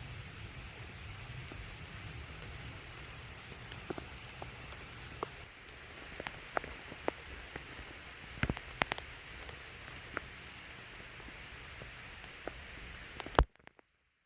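Steady rain falling, with individual drops tapping sharply on a nearby surface every so often; a louder tap near the end, then the sound cuts off.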